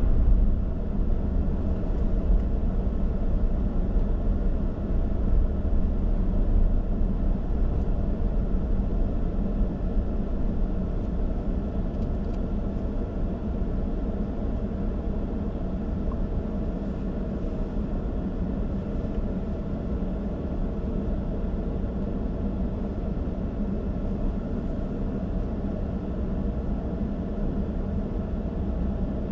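Steady low rumble of a car being driven: engine and tyre noise, a little louder in the first several seconds before settling.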